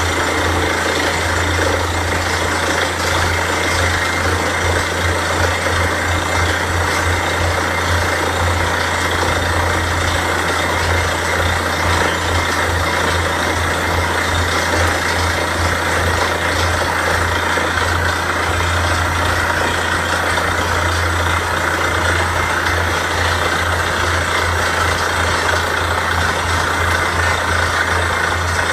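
Borewell drilling rig running steadily, its heavy engine giving a deep, slightly pulsing drone with a dense mechanical noise above it.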